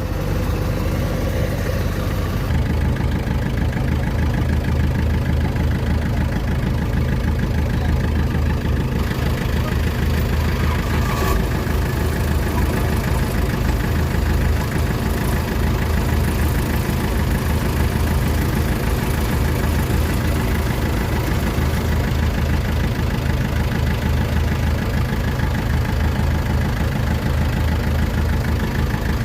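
Diesel engine of a Kubota DC-93 combine harvester running at a steady speed while it tows a tracked tiller; a constant low hum with no change in pitch.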